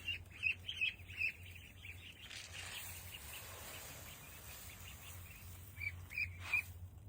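Young ducks peeping: short high chirps repeated several times in the first second or so and again near the end, with a second or so of rustling noise in between.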